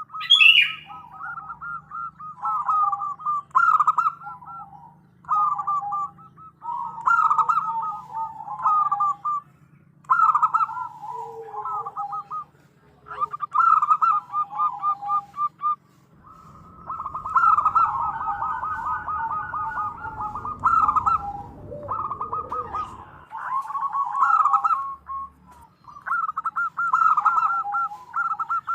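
Female zebra dove (perkutut) cooing in repeated phrases of rapid notes, each a second or two long with short pauses between: the call that lures males to answer. A rough low noise runs underneath for several seconds past the middle.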